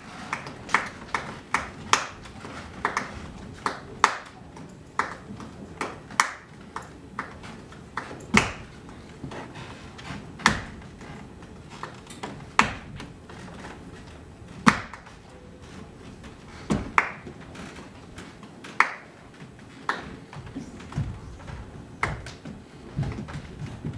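Sparse, sharp clicks and taps, about one a second and sometimes two close together, some with a short pitched ring. Low, steadier sound builds near the end.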